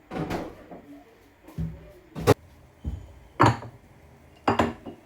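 Kitchen clatter: about six separate knocks and bumps as things are handled and set down, with the sharpest knock a little past two seconds in.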